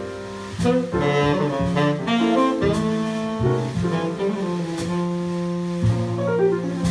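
Live jazz: a tenor saxophone playing over piano chords and upright bass.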